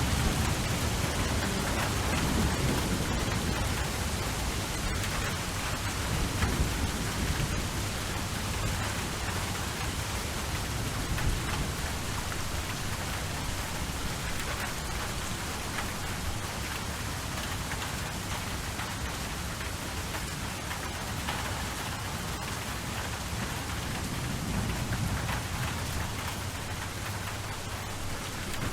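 Steady rain pattering on a surface, with low thunder rumbling in the distance, strongest in the first few seconds and again near the end.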